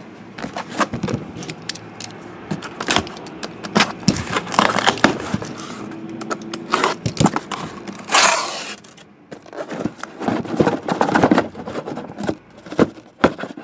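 Cardboard case and card boxes being handled: irregular knocks, clicks and scraping as boxes are opened and slid out, with a longer rasping noise about eight seconds in.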